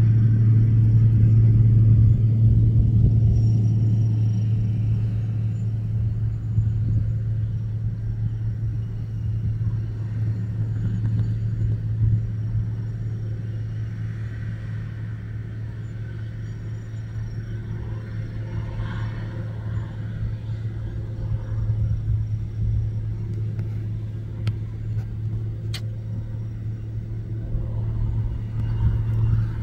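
Large farm tractor's diesel engine pulling a seed drill, a steady low drone with rough rumble. It fades over the first quarter or so, then holds steady.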